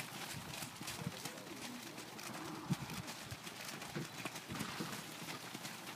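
Hoofbeats of several ridden horses moving around a wet dirt arena, irregular overlapping footfalls with no steady rhythm.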